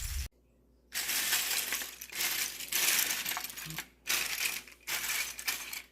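Small plastic LEGO pieces clattering and clinking against each other as they are handled and set down, in about four bursts of rattling.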